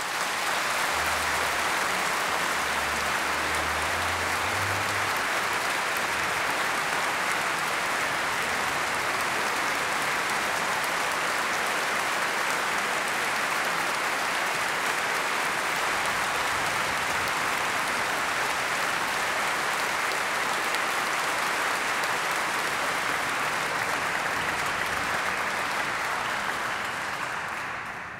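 Concert audience applauding: a dense, steady clapping that breaks out at once and dies away near the end.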